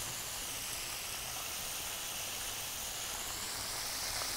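Chicken frying in hot oil, a steady sizzle.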